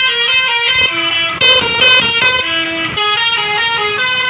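Bus telolet horn: a bus's multi-tone musical air horn playing a quick tune of stepped notes, each held a fraction of a second.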